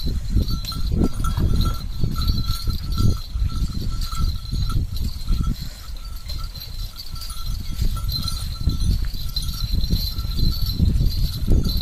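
Bells on a pair of draught bullocks ringing in short, repeated jingles as they walk pulling a loaded bullock cart, over a heavy, uneven low rumble.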